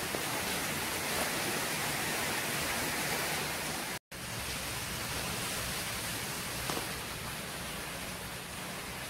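Heavy tropical-storm rain and wind, a steady hiss heard from inside a room through a window. The sound cuts out for an instant about four seconds in.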